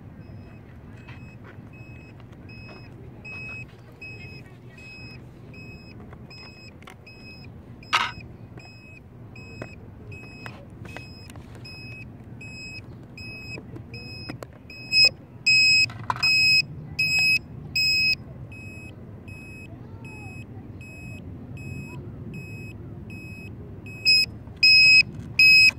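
Electronic beeping from the FT012 RC boat's electronics: a steady string of short high beeps, about two to three a second, turning much louder and longer around the middle and again near the end. A sharp click about eight seconds in.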